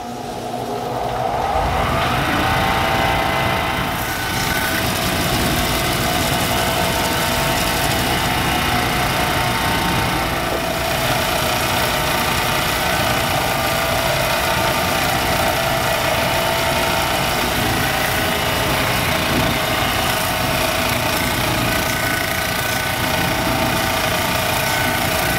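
Electric motor of a homemade wet lapidary sanding and polishing wheel spinning up over the first couple of seconds, its hum rising in pitch, then running at a steady speed. Near the end a chrysocolla stone is held against the wet 800-grit wheel for sanding.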